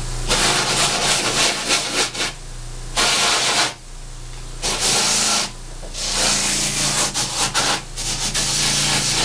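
A motor-driven wheel runs with a steady hum while the suede side of a combat boot is pressed against it, rubbing and scuffing the leather to rough up and clean the nap. The scuffing breaks off briefly three times as the boot is lifted and moved.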